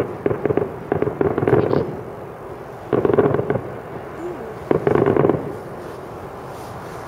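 Aerial fireworks shells bursting, a boom about every two seconds, several followed by quick crackling.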